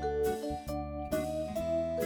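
Background music: a light, plucked-string and keyboard melody over a steady bass line, changing notes about every half second.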